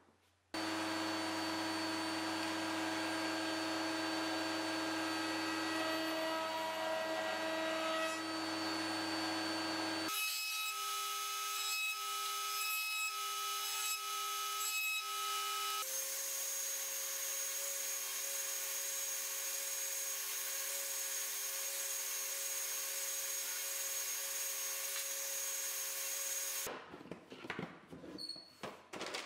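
Power tools running steadily in three back-to-back segments that each start and stop abruptly, among them a table-mounted router as a piece of wood is pushed along its fence past the bit. Near the end comes a couple of seconds of irregular clatter as a plastic tool case is handled.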